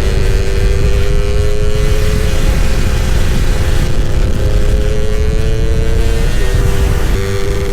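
Two-stroke motorcycle engine at riding speed, its note climbing steadily under acceleration, dropping away about two seconds in and again about six seconds in, over heavy wind rumble on the microphone.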